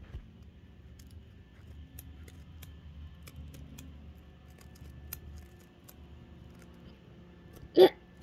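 Scissors snipping and working at a mesh fidget toy: faint, scattered clicks of the blades. Near the end, a brief loud squeak.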